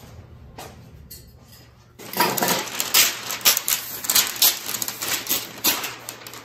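A sheet of brown paper crinkling and rustling as it is handled and spread flat over the back of a frame. After a quieter start, a dense run of sharp crackles begins about two seconds in.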